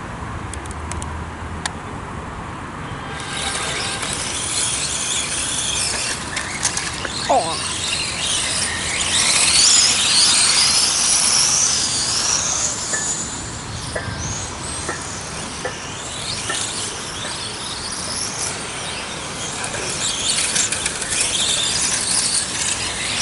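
1:8 scale electric radio-controlled racing cars running laps, their motors making high-pitched whines that rise and fall in pitch as they accelerate and slow through the turns. The whining sets in about three seconds in.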